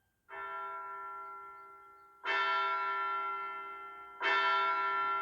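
A large bell tolling, struck three times about two seconds apart, each stroke ringing on and slowly fading into the next; the first stroke is softer than the other two.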